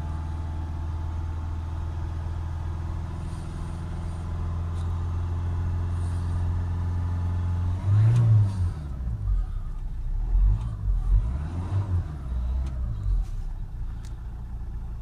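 Renault 1.5 dCi four-cylinder diesel in a Nissan Qashqai running at raised revs, steady and creeping slightly higher. About eight seconds in the note breaks up and the revs sag and surge unevenly as they fall back toward idle. The engine is running and revving again after its severely blocked diesel particulate filter was cleaned.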